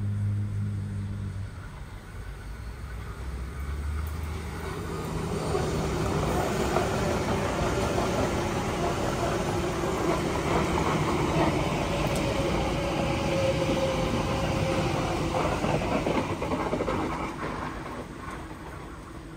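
Sydney Trains OSCAR (H set) double-deck electric train running along the platform: the rumble of wheels on rail builds up, holds close by with a whine that slides a little lower, then fades as the train runs away round the curve.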